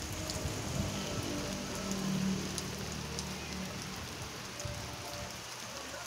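Steady rain falling on garden leaves and concrete, with single drops ticking close by. A low rumble sits under the rain through roughly the first half.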